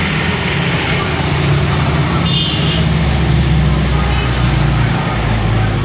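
A motor vehicle engine running close by as a steady low hum that grows louder about a second in and eases off near the end, with a brief high-pitched tone about two and a half seconds in.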